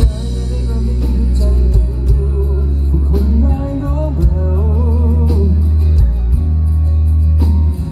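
A live band playing a song: a male singer sings over a heavy bass line and drums.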